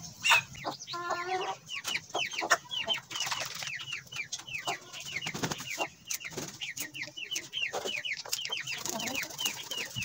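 Chickens clucking and peeping: a steady stream of short, high, falling chirps, with a lower, longer call about a second in.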